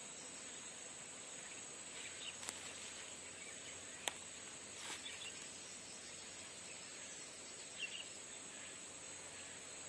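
Faint outdoor ambience: a steady, high-pitched insect chorus, with a few brief soft rustles and one sharp click about four seconds in.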